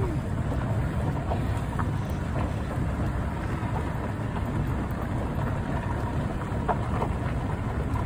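Steady low rumble of riding in an open safari cart on a dirt track: wind buffeting the microphone mixed with tyre and body noise, with a few faint short squeaks.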